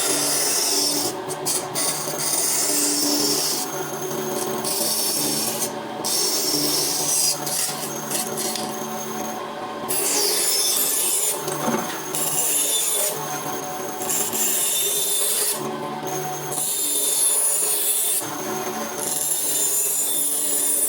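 Rough rasping or scraping on wood in a series of passes, each about one to two seconds long with short breaks, over a steady low hum.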